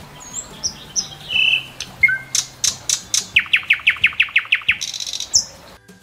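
Nightingale singing a varied phrase: high clear whistles, sharp clicks, then a fast run of about a dozen down-slurred notes, closing on a buzzy trill.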